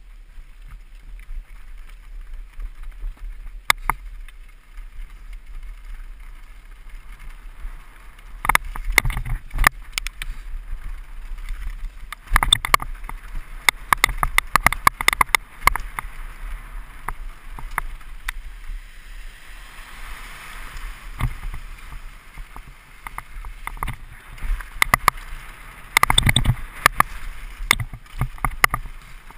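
Mountain bike riding fast down a rough dirt trail: a steady rumble of tyres on dirt, broken by bouts of rattling and clattering as the bike hits roots and rocks. The heaviest clatter comes near the end.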